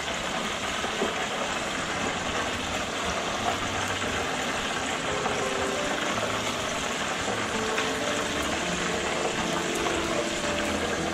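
Squid rings frying in the hot oil of an electric deep fryer: a steady sizzle as coated pieces are dropped into the oil by hand.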